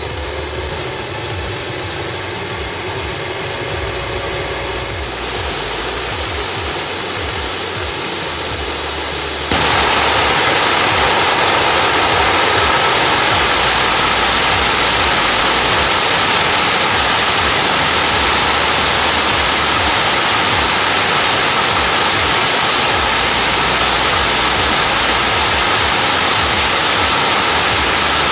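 Homemade kerosene gas-turbine jet engine running: a high whine rises and levels off as it spools up, then about nine seconds in the sound jumps suddenly to a louder, steady rushing noise as the afterburner lights and burns.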